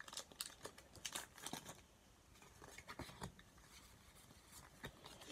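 Faint rustling and scattered clicks of a foil booster pack and trading cards being handled. The clicks are busiest in the first two seconds, then it goes quieter with a few more clicks.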